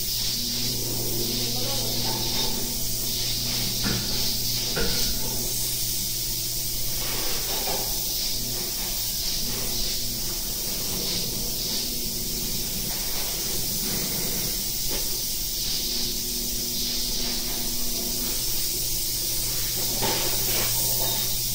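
Air-powered spray gun hissing steadily as it sprays Gatorhyde spray-in bedliner, with a steady low hum underneath.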